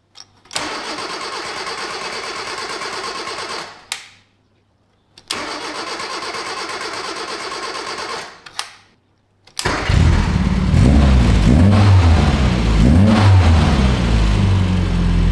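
Engine start: a starter cranks twice, about three seconds each time, with clicks and silence between, and the engine does not catch. On the third try, about ten seconds in, it fires and runs, revs up and down a few times, then settles to a steady idle.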